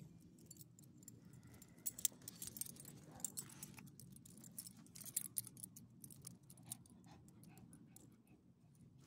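Light metallic jingling and clicking of a dog's collar tags and leash hardware as the dog is handled, a flurry of sharp little clicks from about two seconds in that dies away after about seven seconds.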